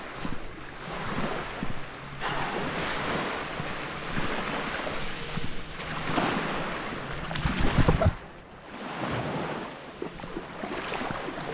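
Small sea waves washing on the beach, with wind buffeting the microphone and a heavy gust of wind noise about eight seconds in.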